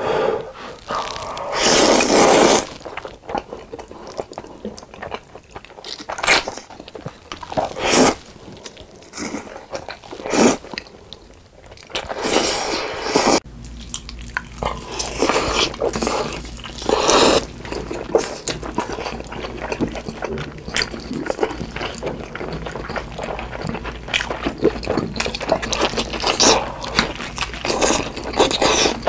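Close-miked eating sounds: black bean noodles slurped and chewed, then, about halfway through, sauce-glazed chicken bitten into and chewed, with a steady low hum underneath from the change onward.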